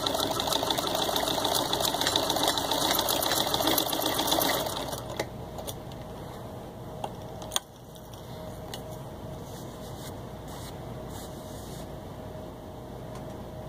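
Antique 1917 Singer 127 vibrating-shuttle sewing machine, hand-cranked at full speed, stitching through six layers of denim with a fast, even rattle. It stops about four and a half seconds in, followed by a few single clicks and a low steady background hum.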